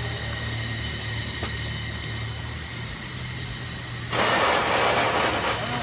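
Steady low hum from a running engine under a faint hiss; about four seconds in, a loud rush of hissing for about a second and a half as pressure is vented from a whistle-blow rig.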